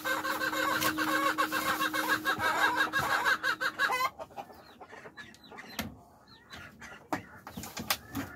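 Backyard hens clucking in their coop over a steady hum; the dense sound cuts off abruptly about four seconds in. Then come scattered short clucks and a few soft knocks.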